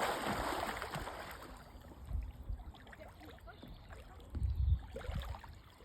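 Outdoor ambience of running water, loudest in the first second and then fading, with wind buffeting the microphone in low rumbling gusts about two seconds in and again, most strongly, between four and five seconds in.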